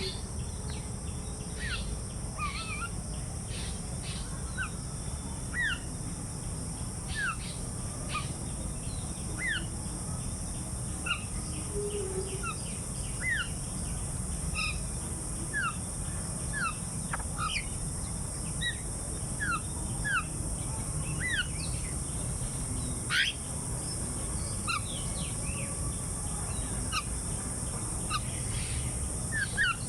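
Several small birds chirping outdoors, with short rising calls every second or so, over a steady high hiss and a low rumble.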